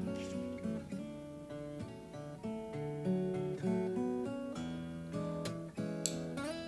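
Background music: an acoustic guitar picking a melody of notes that ring on and fade.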